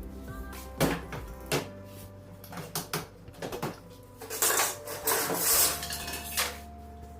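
Clicks, knocks and scraping of objects being handled, loudest just after the middle, over a steady low hum.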